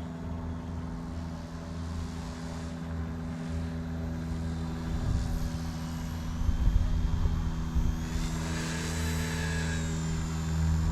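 Eachine E119 micro RC helicopter in flight, its coreless main motor whining and rotor blades whirring as it is brought in to land. The high whine dips in pitch past the middle and rises again about eight seconds in, over a low rumble midway.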